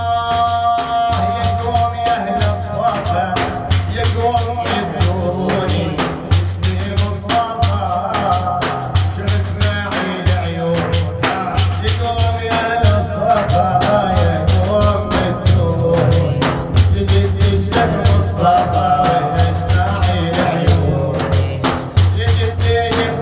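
Sufi devotional praise song (madih): a solo singer's melody over a steady, driving beat of drums and jingling tambourine-like percussion.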